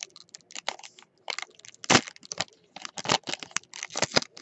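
Foil wrapper of a 2016 Panini Spectra football card pack crinkling and crackling in the hands as it is pulled open, a quick irregular run of crackles with the loudest about two seconds in.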